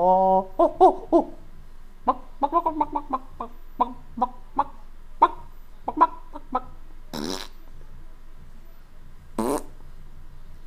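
A few short pitched calls, then a quick run of chicken clucks, followed by two fart noises a couple of seconds apart.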